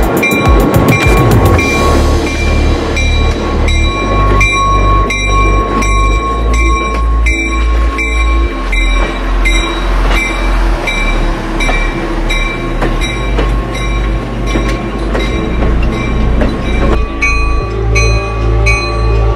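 Background music with a steady beat and a stepping bass line, a new melody coming in near the end. Under it, the sound of a slow passing passenger train.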